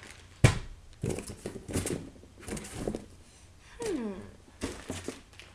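Small plastic bags rustling and crinkling as they are rummaged through by hand, with a sharp knock about half a second in and a softer one near the end. A brief falling hum of voice comes a little before four seconds.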